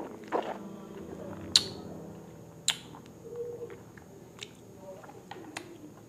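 Mouth sounds of tasting a spirit: a few sharp wet lip smacks and tongue clicks, the two loudest about one and a half and two and a half seconds in, with soft closed-mouth hums between them.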